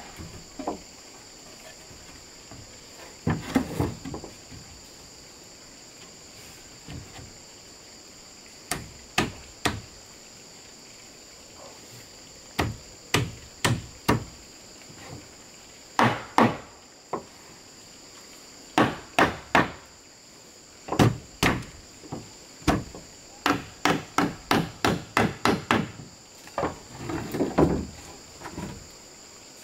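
Hammer blows on wood, in irregular groups of sharp strikes, with a quick run of about four blows a second a little before the end. Steady insect chirring sounds behind.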